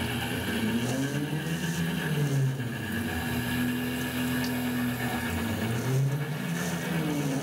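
Tormach PCNC 1100 CNC mill thread milling a steel bar with a 60-degree single-form V cutter, taking a very light final skim cut under flood coolant. Its machine tones glide down and back up in pitch several times over a steady running hum.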